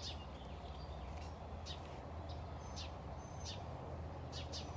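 Small bird chirping: about half a dozen short, high chirps scattered through a steady low background rumble.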